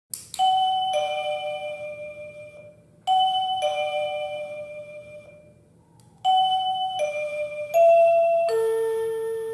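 OHM OCH-R40 wireless call chime playing its electronic door chime: a two-note falling ding-dong, sounded twice with each note ringing out and fading. About six seconds in a different tone starts, a longer run of chime notes stepping down in pitch.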